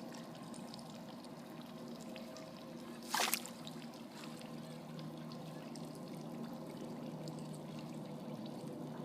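Water trickling steadily, with one short louder noise about three seconds in.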